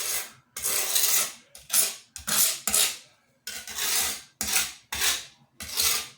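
A hand tool scraping grout against tile or its mixing container in about ten quick strokes, each less than a second long.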